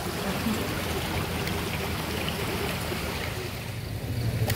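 Steady outdoor background hiss, with a low motor rumble coming in near the end.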